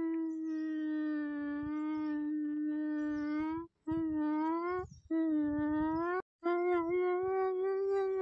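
A long howling wail held on one steady pitch, broken by three brief gaps a little past the middle before it is held again.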